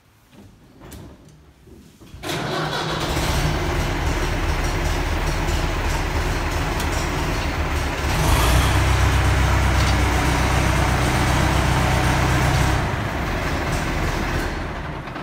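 Leyland tractor's diesel engine catching about two seconds in and running steadily, started to check the newly fitted high pressure hydraulic filter for leaks. From around eight seconds it runs faster and louder for about five seconds, then settles back and dies away near the end.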